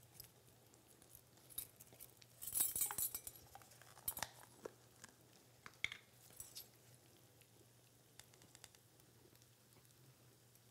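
Light clinks of a metal measuring spoon against a stainless steel mixing bowl and a small plastic cup as yellow mustard is scooped and tapped off, with a brief scraping rustle about two and a half seconds in. The clinks trail off past the middle over a faint steady hum.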